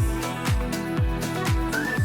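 Background music with a steady beat: a deep kick drum dropping in pitch about twice a second, under held synth notes.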